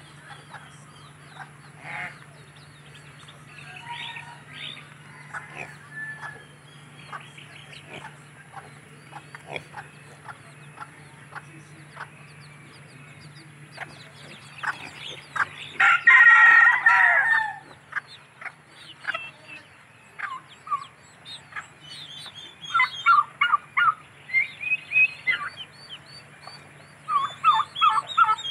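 Backyard chickens clucking and calling throughout, with one long, loud rooster crow about 16 seconds in and clusters of short repeated clucks near the end. A faint steady low hum runs under the first two-thirds and then stops.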